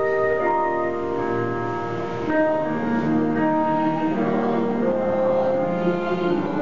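Mixed church choir singing a hymn with keyboard accompaniment.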